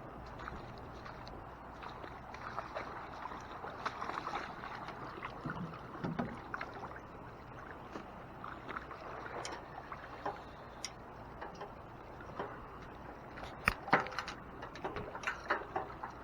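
Floodwater running steadily, with scattered clicks and knocks that come sharper and more often in the last few seconds.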